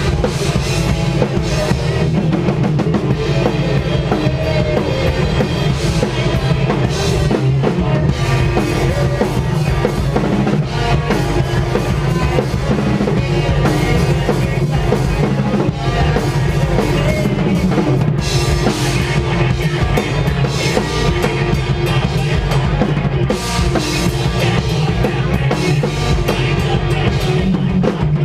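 Post-hardcore/metal band playing live and loud, the drum kit to the fore with kick drum and snare driving under the bass and guitars.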